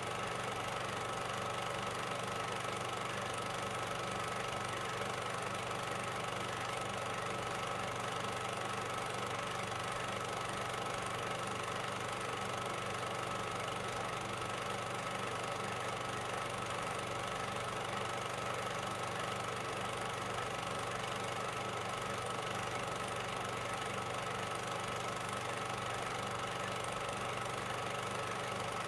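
A steady, unchanging mechanical drone with a constant hiss, even in level throughout, with no blasts or gunfire in it.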